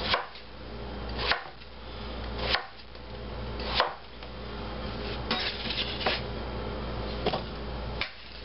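Chef's knife chopping peeled potatoes on a wooden cutting board: four firm strikes about a second and a quarter apart, then several lighter taps.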